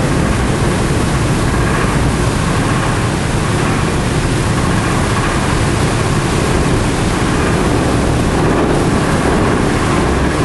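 Churning wake thrown up by the car ferry John H's propellers: a loud, steady rush of foaming water, with wind on the microphone.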